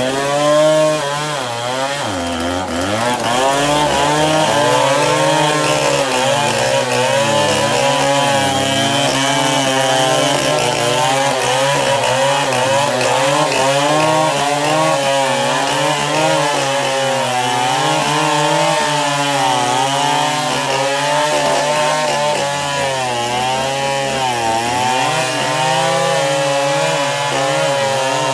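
Chainsaw at high throttle cross-cutting a baobab trunk, its engine note wavering under load as the chain bites. The engine bogs down and picks up again about two seconds in, and once more near the end.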